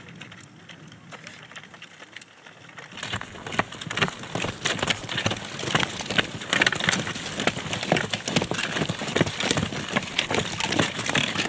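Grass skis and ski poles on a grassy slope: pole tips planting and skis scraping and clacking over the turf in quick, uneven clicks. The sound grows louder and busier about three seconds in.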